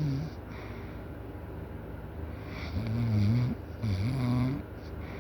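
A sleeping person snoring loudly. One snore trails off right at the start, then after a quieter stretch two snores with wavering pitch come in quick succession in the second half.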